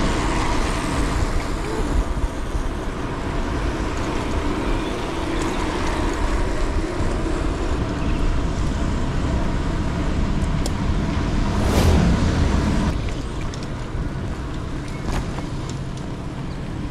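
Road traffic heard from a bicycle on a busy city road: a steady rumble of vehicles going by. One vehicle passes close about twelve seconds in, the loudest moment.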